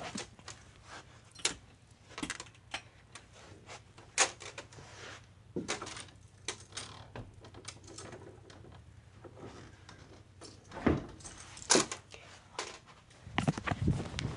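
Irregular clicks, taps and knocks of small objects being handled and moved about, with two louder knocks about eleven seconds in.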